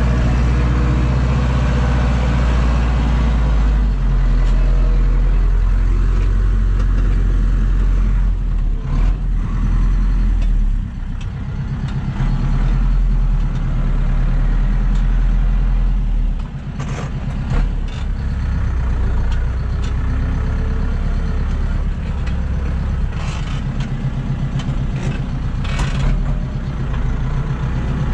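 Zetor tractor's diesel engine running steadily, heard from inside the cab. The engine note dips briefly twice around the middle, and a few sharp knocks and rattles come through near the middle and later on.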